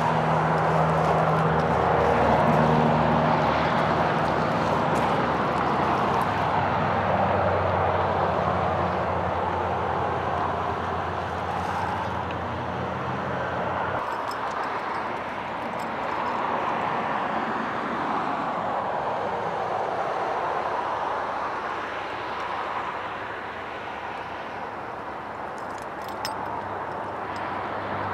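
Road traffic passing nearby: the tyre and engine noise of vehicles swells and fades as each one goes by. A low steady engine hum underneath stops suddenly about halfway through.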